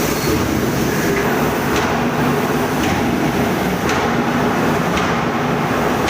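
Steady rumbling workshop machinery noise with sharp metallic knocks about once a second.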